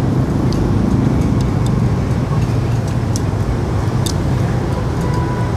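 Steady street traffic noise, a low rumble of passing motor vehicles. A few light clicks of chopsticks against a bowl sit on top.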